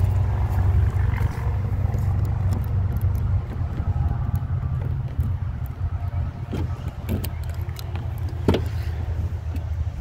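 Ford truck's front door: the outside handle is pulled with a couple of light clicks, then the latch releases with a sharp click about eight and a half seconds in as the door opens. A steady low rumble runs underneath.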